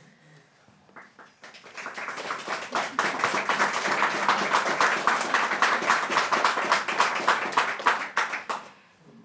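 Applause, a dense run of hand claps that starts about a second and a half in, swells, and dies away near the end.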